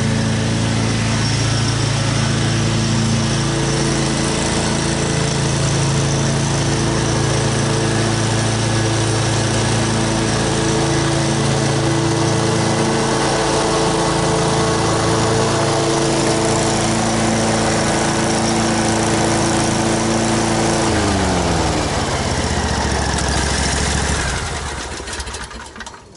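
Exmark Turf Tracer walk-behind mower's engine running steadily as the mower is pushed across the lawn. About 21 seconds in, the engine winds down with falling pitch and is shut off near the end.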